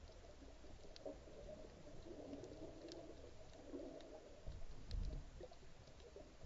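Underwater sound picked up through a camera's waterproof housing: a dull, muffled wash of water noise with a few faint sharp clicks. Low thuds about five seconds in are the loudest part.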